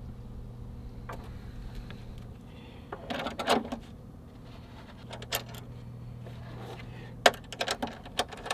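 Metal clinks and knocks as copper bus bar links are handled and fitted onto lithium battery terminal posts: a cluster of knocks about three seconds in, a single click a little later, then a sharp knock near the end followed by a quick run of clicks. A steady low hum runs underneath.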